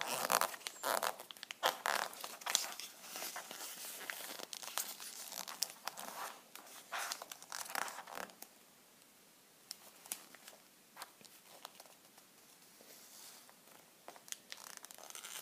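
Origami paper rustling and crinkling as it is unfolded, refolded and creased by hand. The crinkling is busiest in the first half, then thins out to scattered light crinkles and taps.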